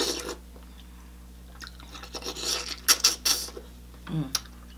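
Close-miked wet eating sounds: lips sucking and smacking on sauce-coated shrimp, in clusters of short wet clicks, the busiest in the middle. A short low hum comes near the end.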